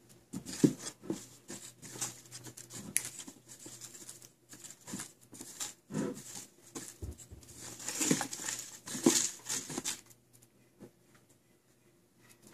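Boat-tailed grackle scratching, tapping and rustling as it hops and pecks at a rug: many quick irregular clicks and scuffs, stopping about ten seconds in.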